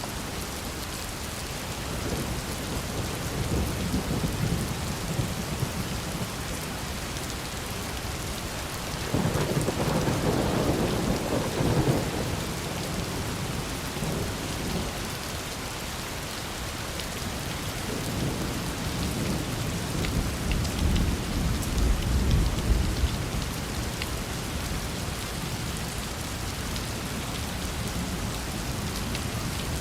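Steady rain falling, with rolling thunder rumbling in several swells, about two seconds in, loudest around nine to twelve seconds, and again deep and low around twenty seconds in.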